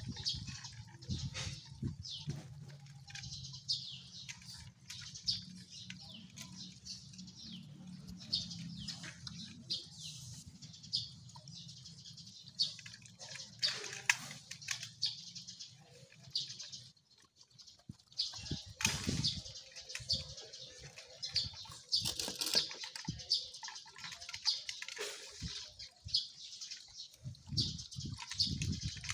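Several dogs eating wet rice from a shared plate: a dense, irregular run of chewing, smacking and lapping sounds.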